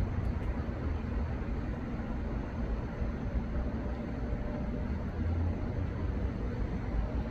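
Steady low rumbling background noise with an even hiss over it, and no distinct events.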